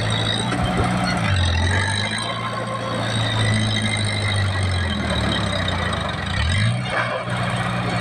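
Small Komatsu crawler bulldozer's diesel engine running under load while it pushes soil. Its note drops about a second in as it lugs, then climbs back up near the end, over steady mechanical clatter.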